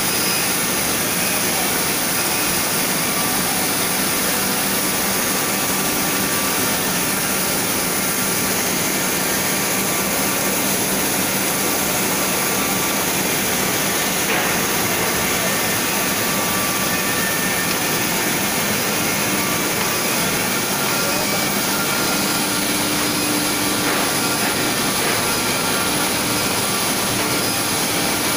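Powered roller conveyor line running with steady machine noise: an even mechanical hum and hiss with faint steady whining tones and a couple of faint knocks.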